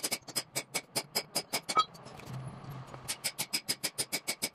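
Hand hammer striking a steel punch held in a Mercedes cylinder head's valve port to knock out a valve seat: quick metallic blows with a short ring, about five a second, pausing for about a second midway before a faster run.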